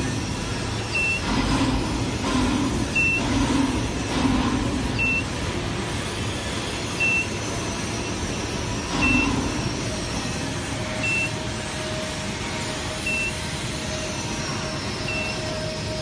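Steady machinery noise in an industrial workshop, with a short, high electronic beep repeating about every two seconds. A steady mid-pitched tone joins about ten seconds in.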